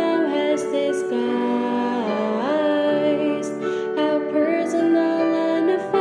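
Background music: a slow, gentle song with singing over keyboard accompaniment, the melody gliding up between held notes about two seconds in.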